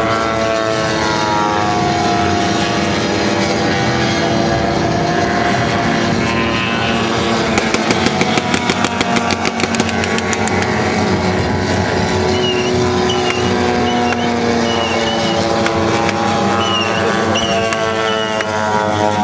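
Several large radio-controlled model aircraft engines droning overhead at once, their pitch rising and falling as the planes pass and change throttle. A rapid run of sharp cracks comes about eight to ten seconds in.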